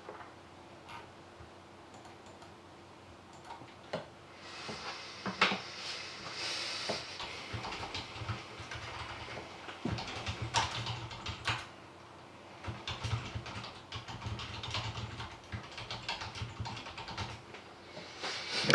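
Typing on a computer keyboard: uneven runs of key clicks broken by short pauses.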